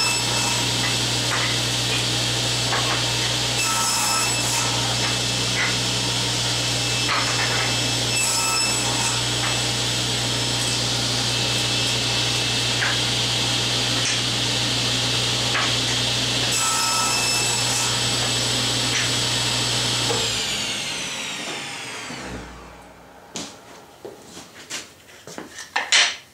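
A shop power tool's electric motor runs steadily with a low hum and a whine, with occasional knocks of wood. About twenty seconds in it is switched off and winds down, its pitch falling over a couple of seconds. Then come a few clatters of wood and one sharp knock near the end.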